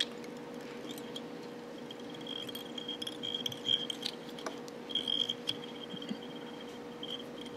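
Faint small clicks and taps of fingers and thread bobbin at a fly-tying vise, over a steady hum, with a faint high whine that comes and goes.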